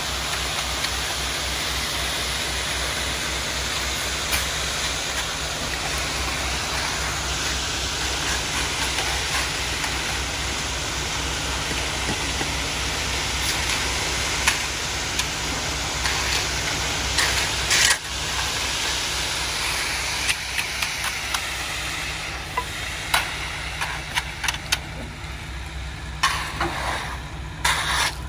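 Concrete mixer truck's diesel engine running with an even low pulse while wet concrete slides down the discharge chute in a steady rushing noise. In the last several seconds, sharp scrapes and knocks come in as the concrete is raked into the form.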